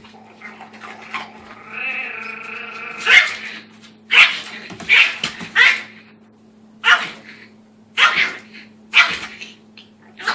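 A small puppy guarding its food bowl from a larger dog, giving a drawn-out high growl about two seconds in, then about eight sharp, high-pitched yaps.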